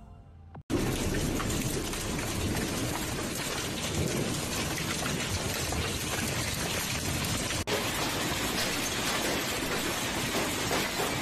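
Heavy hailstorm: a dense, steady clatter of hailstones pelting the ground and the water of a pool. It starts abruptly just under a second in and breaks off for an instant about two thirds of the way through.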